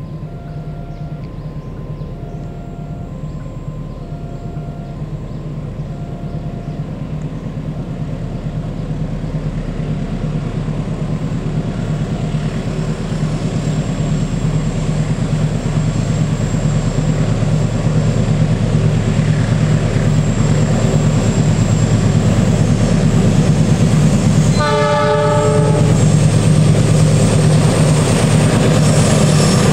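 KAI diesel-electric locomotive hauling a freight train, its engine drone growing steadily louder as it approaches on the curve, with one short horn blast about 25 seconds in. A faint alternating two-tone beeping repeats through the first seven seconds.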